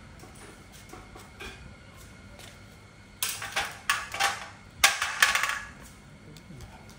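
A cluster of loud metallic clattering and scraping noises, several bursts over about two and a half seconds, from metal tools and parts being handled.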